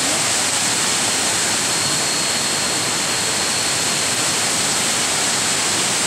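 Waterfall cascades rushing over tiers of rock into pools: a steady, even roar of falling water, with a faint thin high tone held over it.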